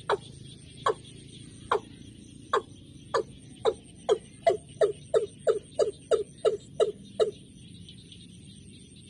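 A bird calling in a series of about sixteen short notes, each falling in pitch, that start nearly a second apart and speed up to about three a second before stopping a little past seven seconds in.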